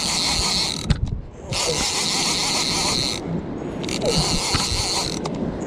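Fishing reel being cranked in spurts of one to two seconds, its gears whirring as line is wound in.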